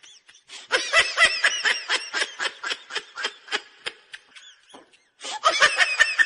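Laughter in two bouts, each a fast run of short, high-pitched 'ha' pulses; the second bout starts about five seconds in.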